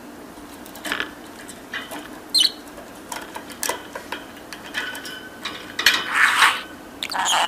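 Pet budgerigar chattering: scattered short chirps and clicks at first, then denser, louder bursts of its mimicked-speech chatter over the last two seconds.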